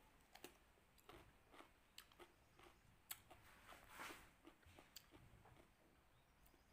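Faint chewing of crisp raw cucumber, with irregular crunches and a louder crunchy bite about four seconds in.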